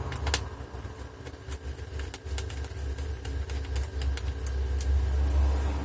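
Low, steady engine rumble of a digger working close by, with scattered light clicks from small laptop screws and parts being handled.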